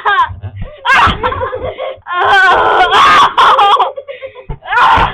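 Children's voices shouting, squealing and laughing in several loud, high-pitched outbursts, with no clear words.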